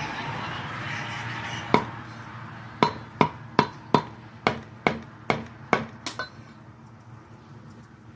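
A knife chopping on a cutting board: about ten sharp strikes, one on its own and then a run of hits at a steady pace of roughly two or three a second that stops near the end.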